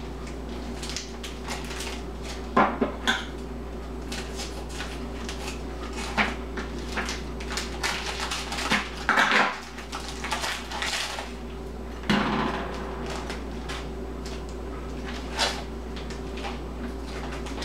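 Plastic wrapping on frozen tilapia fillets crinkling and being cut open, with scattered clicks and knocks as the hard frozen fillets are set into a glass baking dish.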